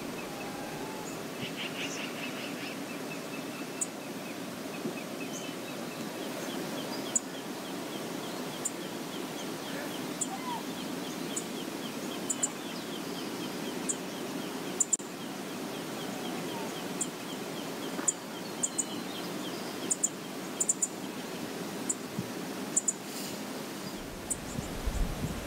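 Steady rush of the Brooks River's flowing water, with short high bird chirps coming at irregular intervals, more often in the second half.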